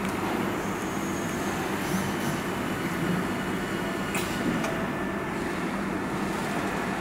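Steady hum and running noise of workshop machinery, with a few light clicks, the clearest about four seconds in.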